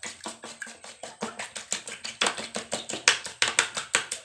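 Two raw eggs being beaten in a bowl: a rapid, steady run of clicks as the utensil strikes the bowl, about five strokes a second.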